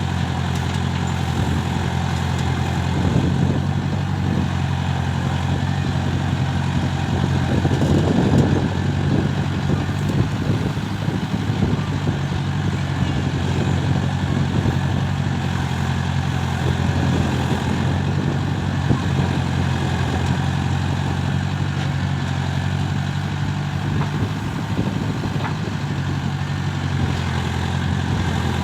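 Diesel engine of a tractor-mounted backhoe loader running at a steady speed, with a brief rougher surge about eight seconds in.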